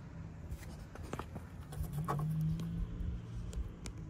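Handling noise from a car's headlight wiring harness and plastic connector being held and moved in the hand: scattered small clicks and rustles. A low steady hum comes in about two seconds in and fades out before the end.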